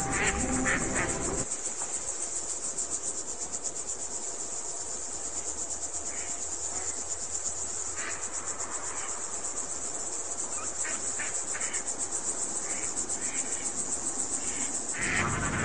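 Crickets chirping in a dense, rapid, high-pitched pulsing chorus, a night-time insect ambience. Music fades out about a second and a half in.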